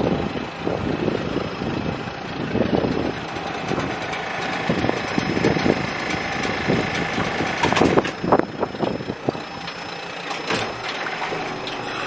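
Wind buffeting the microphone in irregular gusts over the steady running of a small boat's engine.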